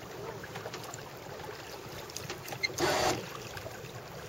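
Water splashing and lapping along the hull of a Martin 16 sailboat under way, with scattered small ticks and a brief louder rush about three seconds in.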